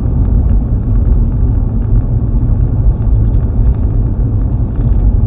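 Steady low rumble of a truck's engine and road noise, heard from inside the cab while driving.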